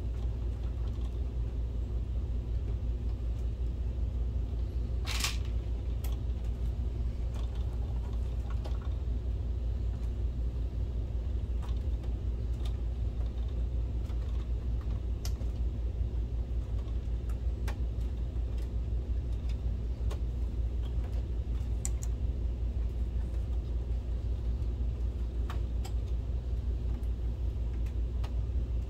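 Steady low hum throughout, with scattered small clicks and taps of wiring harnesses and plastic connectors being handled and seated inside an opened LCD projector. The sharpest click comes about five seconds in.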